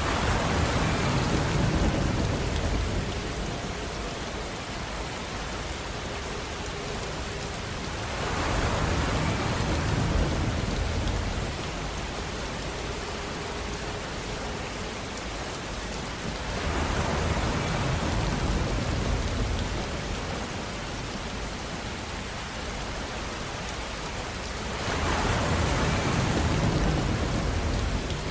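Steady rushing outdoor noise that swells louder four times, about every eight seconds, then eases back.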